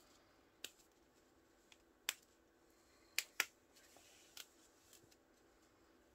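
Rubber bands being worked off a rolled diamond painting canvas: a handful of short sharp snaps and clicks scattered over faint handling noise, the two loudest close together a little past the middle.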